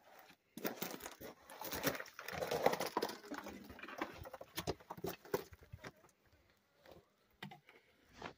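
Scrambling over rock: shoes scuffing and crunching on gritty rock and loose gravel, with many sharp clicks and knocks. It thins out to a few scattered clicks after about five seconds.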